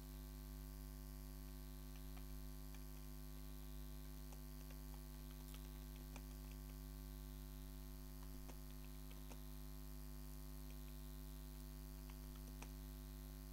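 Steady electrical mains hum, with faint, irregular clicks as text is typed into the computer, about one or two a second.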